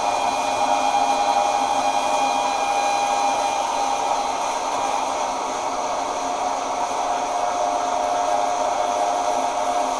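An electric power tool's motor running steadily with a whine, its pitch dipping slightly about halfway through.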